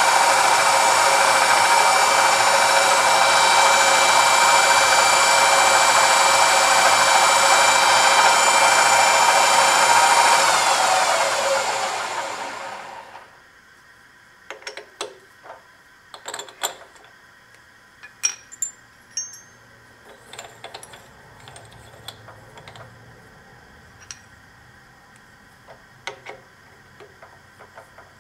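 Large drill press running steadily, then switched off about ten seconds in, its pitch falling as the spindle spins down to a stop. After that come light, scattered metallic clicks and taps of hands working the drill chuck.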